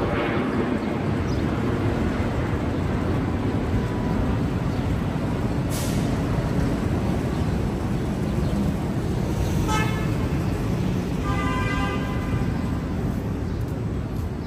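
Steady city street traffic noise, with a short horn toot about ten seconds in and a longer horn tone just after.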